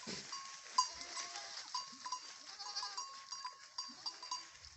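Goats bleating faintly now and then, twice or so, over a short high note that repeats all through.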